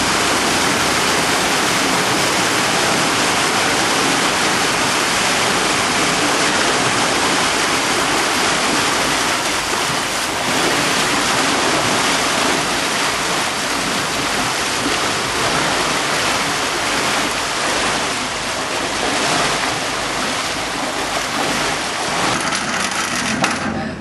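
Steady loud rushing of water, which drops away abruptly at the very end.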